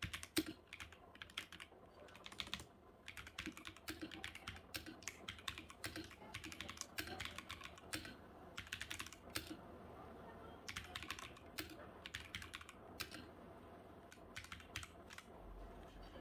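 Typing on a Zifriend ZA68 mechanical keyboard: quick, irregular runs of key clicks with brief pauses between them.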